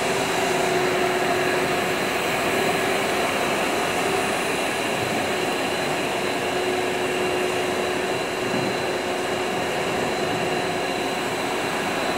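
Double-wall corrugated pipe extrusion line running: a steady machine whir with several constant whining tones over a hiss.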